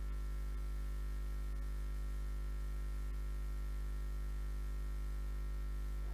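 Steady low electrical hum: mains hum at 50 Hz with its overtones, from a live PA sound system with nothing playing through it.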